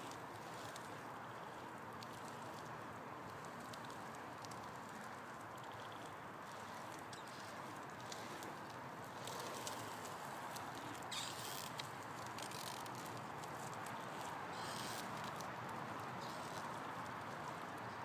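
Trikke carving scooter rolling and carving over rough asphalt: a steady rolling hiss with scattered light clicks and rattles.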